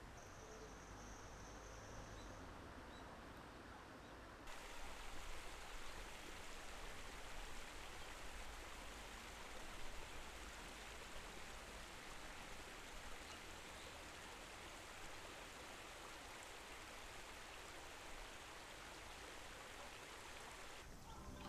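Faint, steady rushing of a flowing stream, becoming fuller and brighter suddenly about four and a half seconds in.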